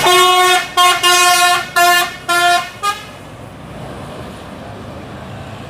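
Telolet basuri musical bus horn sounding a quick run of about six short blasts on much the same note, the last one briefly higher, over about three seconds. Then steady road noise.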